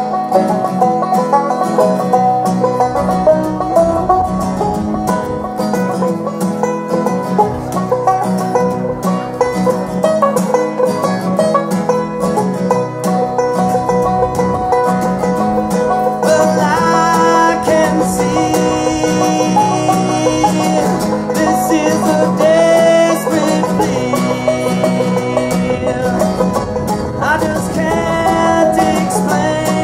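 Acoustic bluegrass played live on banjo and acoustic guitar: rolling banjo picking over strummed guitar chords.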